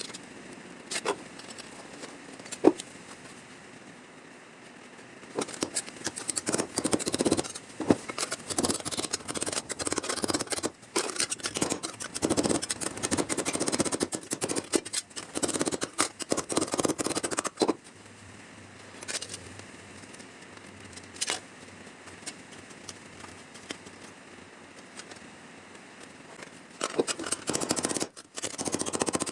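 Hand tool working the sheet metal of a car body panel: irregular scraping and snipping in bursts, with a few sharp clicks before them, as rusted metal is cut out and dressed for a patch.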